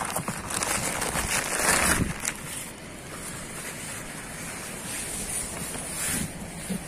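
Plastic bags rustling and crinkling as they are pulled out of a plastic tub, stopping suddenly about two seconds in, followed by steady wind noise on the microphone.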